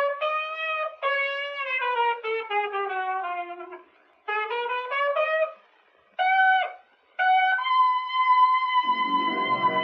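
Solo trumpet playing a slow, falling melody in short phrases with two brief pauses, then holding one long note; lower instruments come in underneath near the end.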